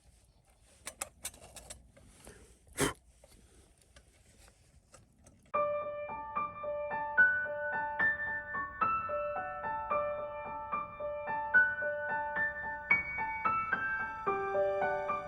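A few faint clicks and one sharper knock, then background piano music starts about five and a half seconds in: a gentle, even run of single notes.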